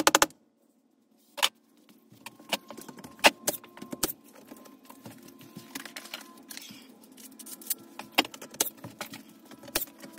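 Scattered, irregular sharp knocks and clicks with metallic clinking from hand work on tongue-and-groove wall boards, over a faint steady hum.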